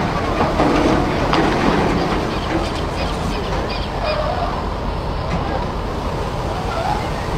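Loud steady rumble and rushing noise on a ship's deck, with people's voices raised over it now and then.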